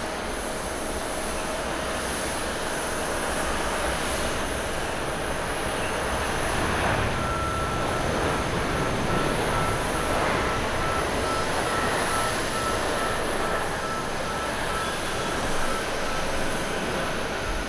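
Boeing 787-9 airliner's jet engines and rumble just after touchdown as it rolls out along the runway. The noise swells a few seconds in, with a steady whine joining about seven seconds in.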